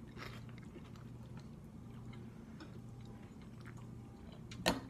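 A person chewing a mouthful of crunchy chicharrón (fried pork rind), faint with small scattered crunches. One sharp click near the end.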